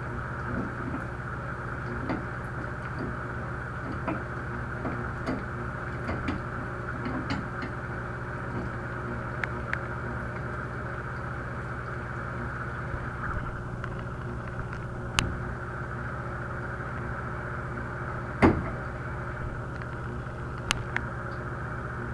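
Scattered light clicks and taps of hand tools working at a shower valve cartridge that is stuck, with two sharper knocks in the second half. A steady hum runs underneath.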